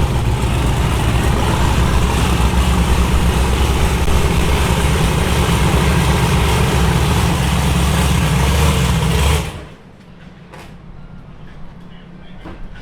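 A vehicle's engine running steadily, loud and low, that cuts off abruptly about nine and a half seconds in, leaving a much quieter stretch with a few faint clicks.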